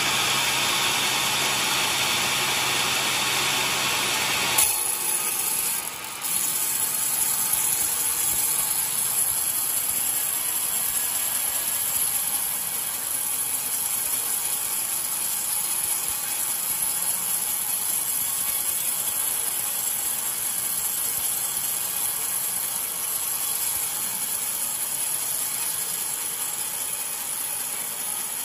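Homemade band sawmill's blade running through an old coconut-wood log: a steady, hissing sawing noise. About five seconds in, the lower rumble drops away abruptly with a brief dip in level, then the high sawing hiss carries on.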